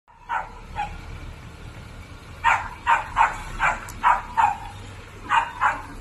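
A dog barking about ten times in short irregular volleys, over the low rumble of a dump truck's diesel engine.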